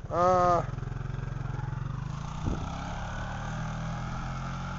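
Arctic Cat 300 ATV engine running steadily, picking up from idle as the quad pulls away. A brief loud shout comes right at the start.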